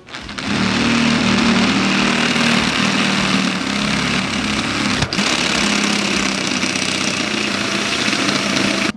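A small motor running steadily, dipping briefly about five seconds in and cutting off suddenly at the end.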